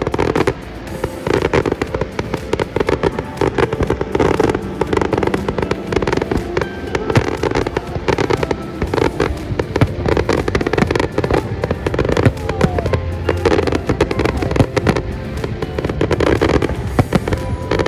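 Fireworks display: a dense, continuous run of bangs and crackles, with music playing alongside.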